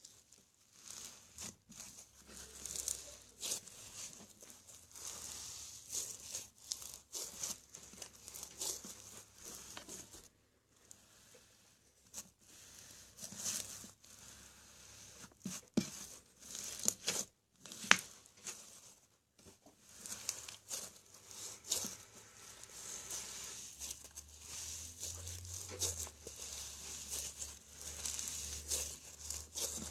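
Homemade slime mixed with tiny decorative sand rocks being squished and stretched by hand, giving an irregular grainy crackling and tearing, with many small sharp clicks. There are brief pauses about ten seconds in and again near eighteen seconds, where one click stands out.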